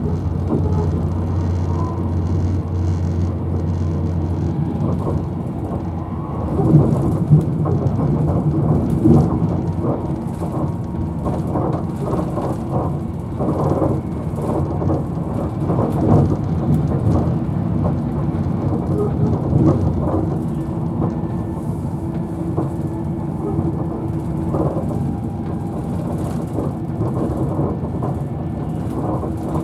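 Interior running noise of a Virgin Trains Class 390 Pendolino electric train at speed: a steady low rumble of wheels on rail and body noise. A low hum fades out about five seconds in, and there are a few louder jolts and swells a couple of seconds later and again midway.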